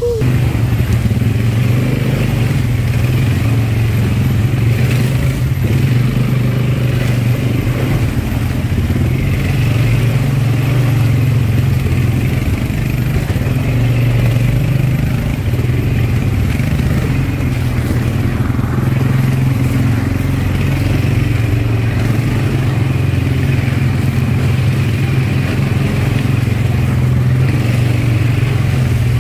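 ATV engine running at a steady, even pace while riding, a low continuous drone with no marked revving.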